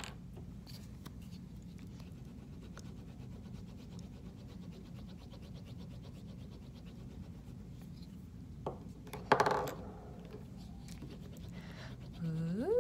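Tempera paint stick rubbing over paper in quick back-and-forth strokes, a faint steady scratchy scraping, with a short louder noise about nine seconds in. Near the end a dog starts a whine that rises and then falls in pitch.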